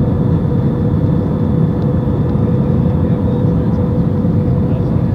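Airbus A320 cabin noise on final approach, low over the ground: a steady low rumble of engines and airflow with an even hum running through it.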